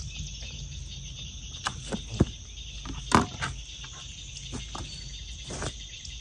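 Steady high-pitched insect chorus, with a handful of short knocks and scrapes from a knife and fish being handled on a plastic cooler lid. The loudest knock comes about three seconds in.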